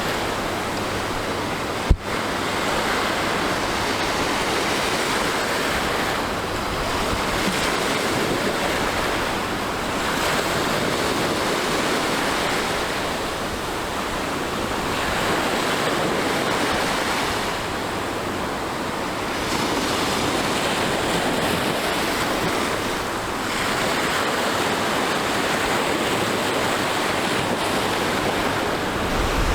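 Waves breaking on a beach in strong wind, a continuous rushing surf that swells and eases every few seconds, with wind buffeting the microphone. A single sharp click about two seconds in.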